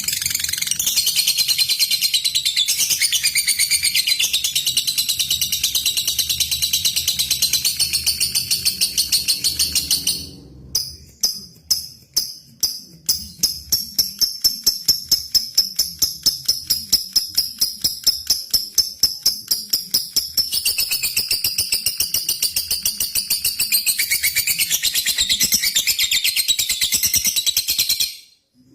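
Lovebird singing a long, unbroken high-pitched chattering trill (ngekek). About ten seconds in it switches to rapid separate ticking notes (ngetik), about three a second, then returns to the long trill until it cuts off suddenly near the end. This is the aggressive calling song used to provoke rival lovebirds into singing.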